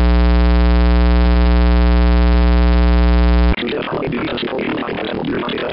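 A loud, steady, low electronic buzz from a talking thermometer's scanning, cutting off suddenly about three and a half seconds in. Dense electronic music follows.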